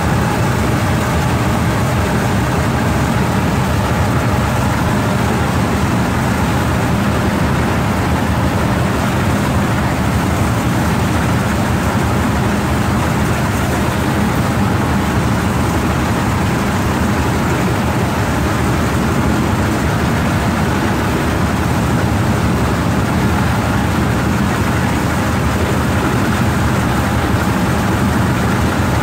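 Motorized rice thresher running steadily as bundles of rice stalks are fed into it to strip off the grain: a loud, constant machine drone with a low hum.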